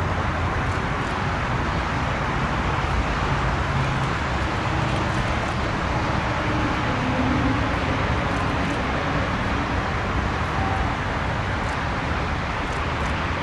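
Steady rumble and hiss of a Bombardier Global Express business jet's turbofan engines at taxi power, heard from a distance mixed with the general background noise of the airport.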